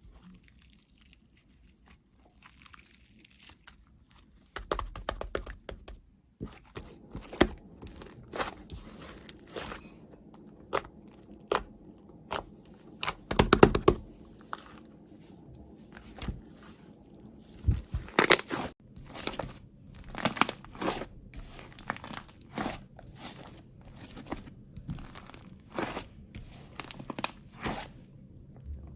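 Clay-mixed slime being squished and stretched by hand, giving irregular sticky clicks, crackles and pops, with a quick cluster of pops about halfway through and a steady string of clicks later on.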